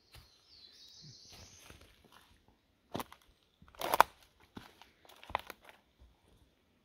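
Footsteps on a forest floor of dry leaf litter and twigs, with a few uneven steps about three, four and five seconds in, the one near four seconds the loudest. A bird calls faintly during the first two seconds.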